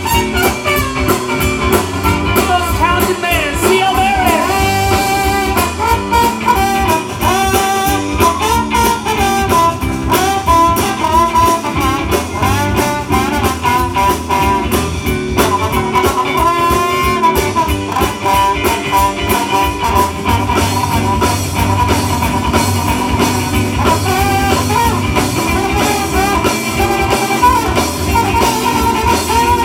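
Live swing and soul band playing with a steady beat: electric guitar, bass, drum kit and a horn section of saxophone, trumpet and trombone.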